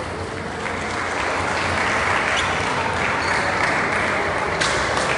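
Applause from spectators in a sports hall, swelling about a second in and running on steadily, with one sharp click near the end.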